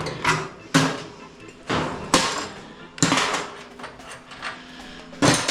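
A series of separate knocks and clunks, about five of them, each short and fading out: tools and metal parts being handled during a dryer's disassembly.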